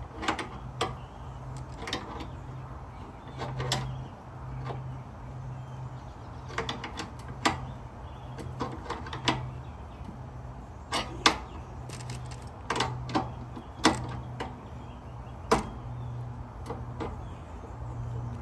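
Hand tools clicking and knocking against the flare nut of a mini-split air conditioner's copper refrigerant line as it is held with one tool and tightened with the other: scattered sharp metallic clicks at irregular intervals, under a low pulsing hum.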